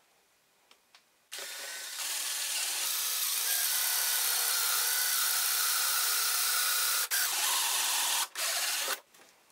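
Power drill running with a spiral wood bit boring into the end of a wooden curtain rod. It starts about a second in, a little softer at first and then steady and louder, and stops shortly before the end.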